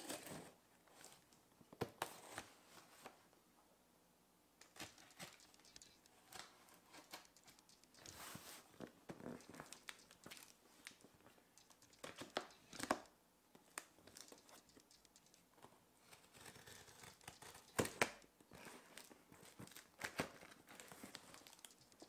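Packing tape on a cardboard box being cut and torn open with a knife: on-and-off scratchy slicing and ripping, with cardboard rubbing and a few sharp clicks.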